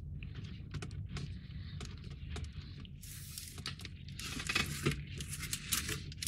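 Small clicks and taps of small model parts being handled and fitted on a workbench, with brief rustling about halfway through. A steady low hum runs underneath.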